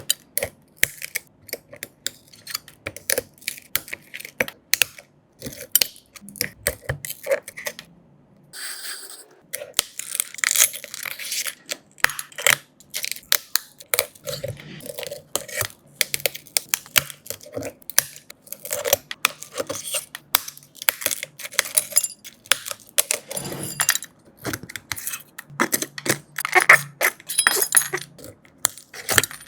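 Dense, irregular sharp clicks, taps and scrapes of small metal hand tools working on an iPhone's cracked back glass, with a short hiss-like scrape about nine seconds in.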